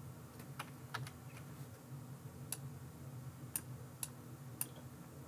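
Scattered clicks from a computer mouse and keyboard, about eight single clicks a fraction of a second to a second apart, over a faint steady low hum.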